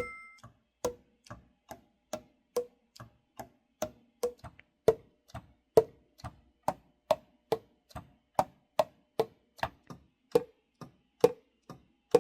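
Saxophone keys tapped shut in a steady rhythm, about two clicks a second, each pad closing with a short hollow pop on the Yamaha YAS-52 alto.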